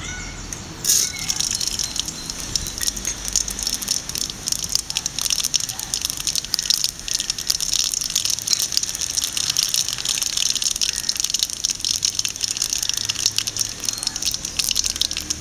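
Mustard seeds, cumin seeds and urad dal hitting hot oil in a pan: a sudden burst of sizzling about a second in, then steady dense crackling as the mustard seeds pop and splutter.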